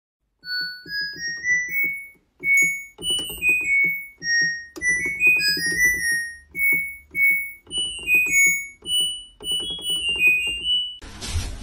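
Background music: a keyboard melody of short, quick notes over a steady beat, starting about half a second in after a brief silence.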